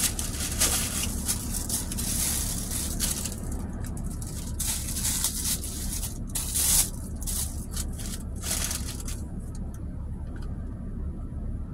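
Plastic wrapping and packets rustling and crinkling in repeated short bursts as a wrapped plastic fork and a sauce packet are handled and opened, over a steady low hum. The rustling thins out near the end.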